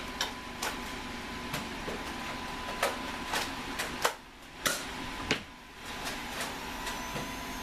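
Sharp plastic clicks and clacks of Nerf blasters being worked, about ten of them at uneven intervals, the loudest a few seconds in, over a faint steady high hum. They follow right after a blaster has jammed.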